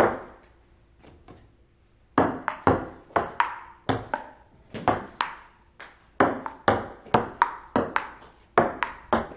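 Table tennis rally: a celluloid ping-pong ball clicking off paddles and the table, about two to three sharp hits a second. After a single hit at the start and a quieter stretch, the rally gets going about two seconds in and keeps up steadily.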